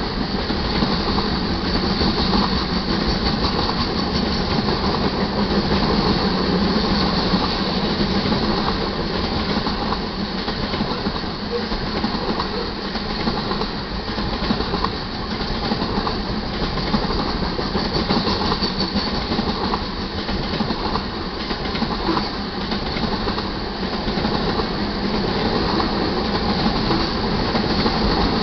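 Covered hopper cars of a freight train rolling steadily past: a continuous rumble with the wheels clattering over the rails.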